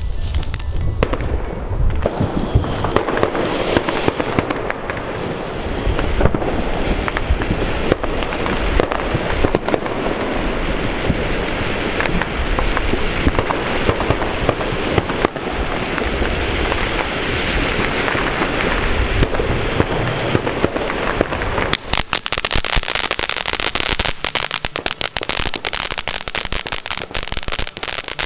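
Consumer fireworks going off in a dense run of crackling and bangs. Near the end it turns into rapid, sharp popping and crackling.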